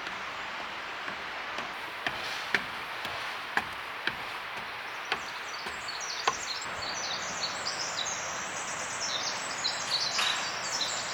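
Footsteps knocking on a wooden boardwalk, half a dozen sharp irregular steps, over a steady rush of water. From about halfway through, a small bird sings rapid high chirping phrases.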